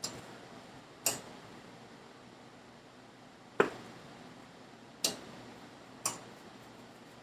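Five sharp taps or knocks, irregularly spaced, each ringing out briefly; the one about three and a half seconds in is the loudest.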